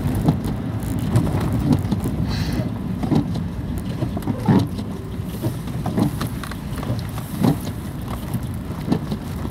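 Inside a car's cabin driving on a snowy road: steady low engine and tyre rumble, with a short knock about every one and a half seconds from the windscreen wipers sweeping.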